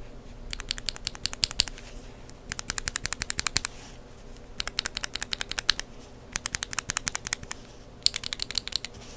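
Lubed linear mechanical keyboard switches with Kailh Burgundy stems, pressed rapidly by finger in five bursts of clacks, about ten presses a second, each burst lasting roughly a second.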